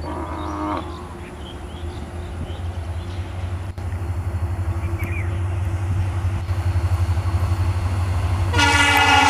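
An approaching EMD WDP4 diesel locomotive with a train, its engine rumble pulsing and growing steadily louder. About eight and a half seconds in, its air horn starts loud, several tones sounding together as a chord.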